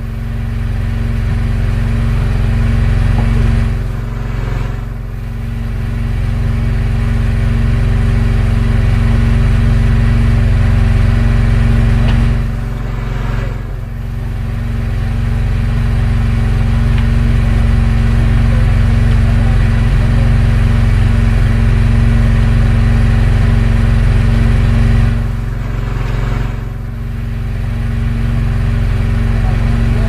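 Engine on an outrigger fishing boat running steadily with a low drone, dipping briefly in level three times.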